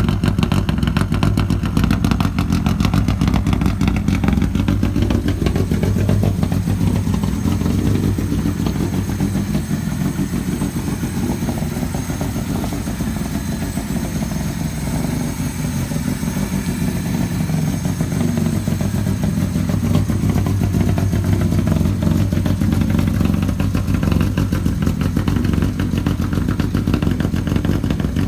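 Lada VFTS rally car's tuned four-cylinder engine running steadily near idle, with a rapid, lumpy beat of firing pulses. It eases a little quieter in the middle and picks up again.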